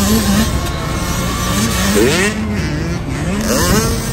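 Small two-stroke 65cc youth motocross bikes revving hard as they race past, several engines overlapping. Their pitch keeps rising and falling, with sharp climbs about two seconds in and again near the end as riders open the throttle.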